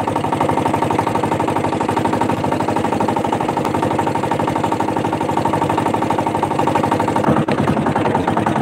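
Engine of a motorised outrigger banca running steadily under way, a fast even pulse of firing strokes.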